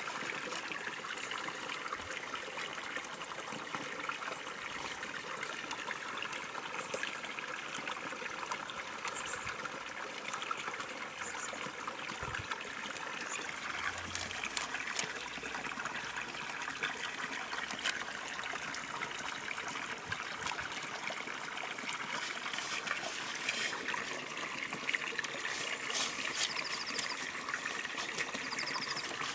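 Steady trickling of running water, with scattered light clicks and rustles as spiky castor seed pods are picked off their stems and dropped into a clay bowl.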